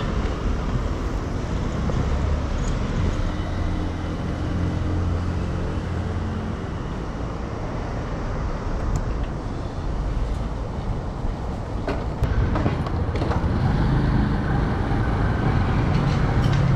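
Steady city traffic rumble, with a few sharp clicks about twelve seconds in.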